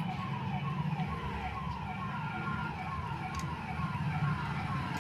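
A rapidly repeating electronic siren-like warble: short falling tones, about four a second, over a low steady hum.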